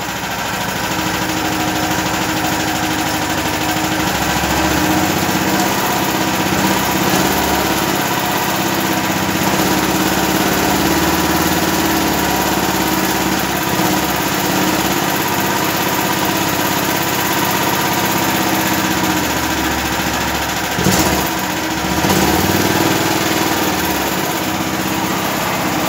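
Grip 13 hp single-cylinder petrol engine of a 5.5 kVA portable generator running steadily, heard close up. There are a couple of brief knocks about five seconds before the end.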